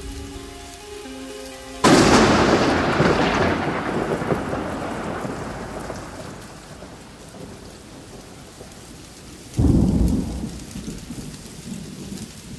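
Thunderstorm: a sudden loud thunderclap about two seconds in, rumbling away over several seconds, then a second, deeper clap of thunder near the end, over steady rain.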